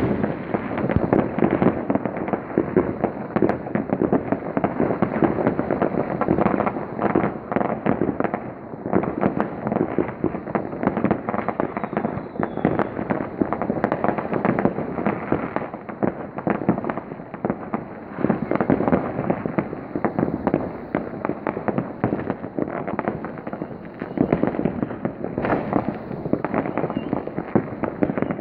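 Fireworks and firecrackers going off from many places at once: a continuous barrage of overlapping bangs, pops and crackles with no pause.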